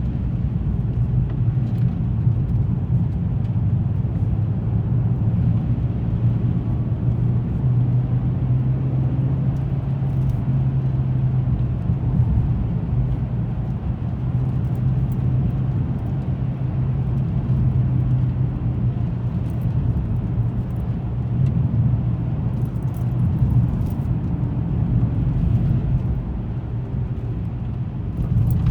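A car driving on the road: a steady low engine and tyre hum, with a scatter of faint ticks about twenty seconds in.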